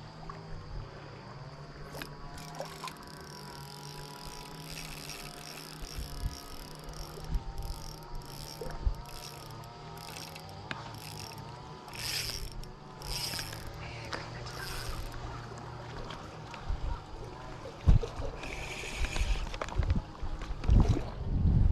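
Spinning fishing reel clicking and whirring mechanically. Several heavier thumps come near the end.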